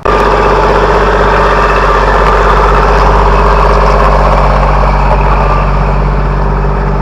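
Tractor engine running steadily and loud at close range, cutting in suddenly at the start.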